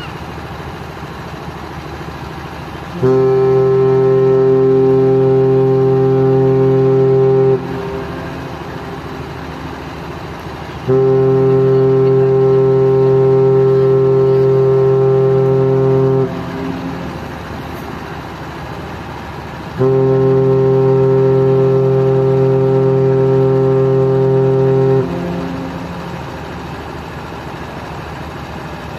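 Passenger ship KM Dorolonda's whistle sounding three long, steady blasts of about five seconds each, a few seconds apart: the three-blast signal that the ship is about to leave port. A steady hum runs underneath between the blasts.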